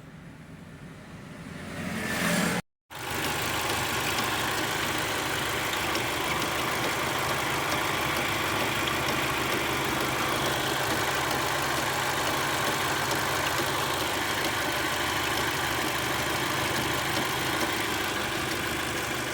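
Kia Sorento's 2.0-litre engine running steadily, with accessory-belt noise from a slack belt, whose tensioner has failed. The sound cuts out briefly about three seconds in, then runs on evenly.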